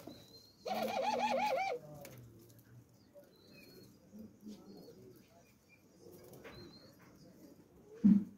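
Caged doves calling. About a second in comes a loud, wavering call lasting about a second, followed by soft, low, short coos, and a louder low coo near the end.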